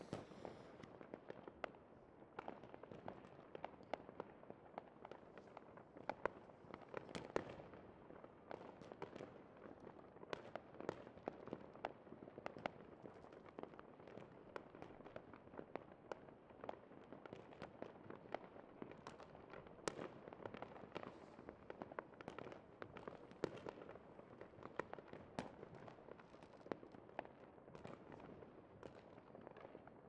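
Fireworks display going off: a continuous, irregular stream of sharp pops and crackles, several a second, with a few louder bangs standing out over a steady rumbling hiss.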